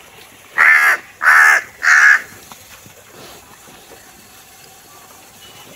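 A crow cawing three times in quick succession, harsh calls each under half a second long.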